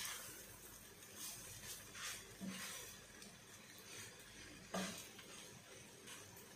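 Wooden spatula stirring and scraping fried rice in a coated frying pan: soft scraping strokes every second or so, with one sharper knock of the spatula on the pan almost five seconds in.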